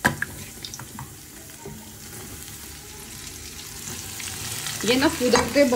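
Cornflour-coated corn kernels frying in hot oil: a steady sizzle with scattered small pops, opening with one sharp clack. The frying grows louder and busier toward the end, as the kernels jump and spatter in the oil.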